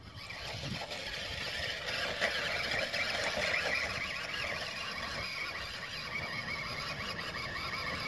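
A remote-control toy jeep's small electric motor and plastic gears whining as it drives across grass: a steady high whine that wavers in pitch and stops just after the end.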